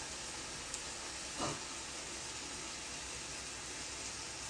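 Pork slices sizzling on a tabletop grill tray: a steady frying hiss, with a faint click just under a second in and a short louder sound about a second and a half in.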